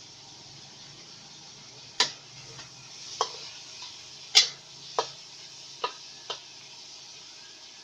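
Shrimp and squid sizzling in a hot pan with a steady hiss, while a spatula knocks against the pan six times in the middle stretch; the loudest knock falls about halfway through.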